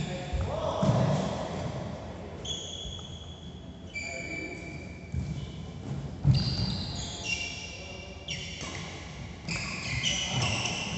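Badminton players' shoes squeaking and thudding on a synthetic court mat during a rally, with sharp racket hits on the shuttlecock. The loudest hit comes a little after halfway.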